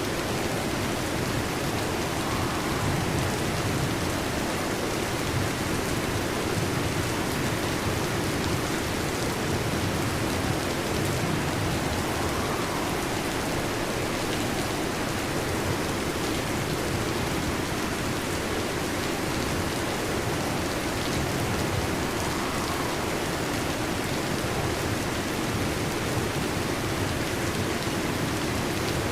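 Steady heavy rain: an even, unbroken hiss of falling rain with no thunder, and a faint swell that comes back about every ten seconds.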